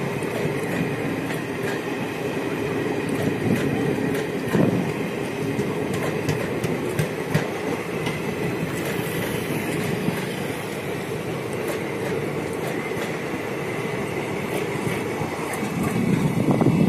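Blue Indian Railways passenger coaches rolling past on the track: a steady rolling rumble with wheels clicking over the rail joints. It grows louder near the end as the nearest coaches go by.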